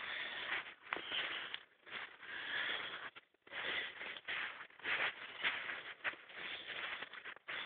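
A person breathing hard close to the microphone: a run of irregular, noisy breaths, each about a second long.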